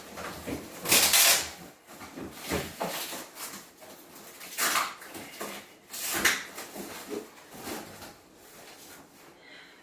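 Several short rustling or scraping noises, the loudest about a second in, with two more at about the middle.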